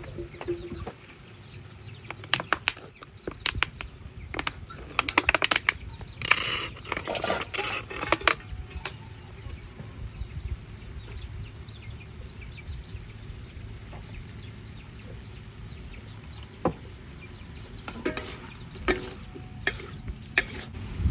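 Metal spatula knocking and scraping against a steel wok of pork liver in sauce, in quick clusters during the first half and again near the end, with chickens clucking in the background.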